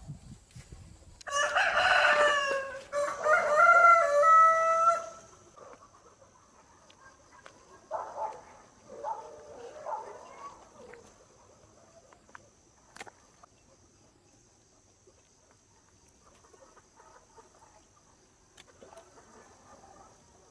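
A rooster crows once, loudly, starting about a second in, followed a few seconds later by fainter short clucking calls.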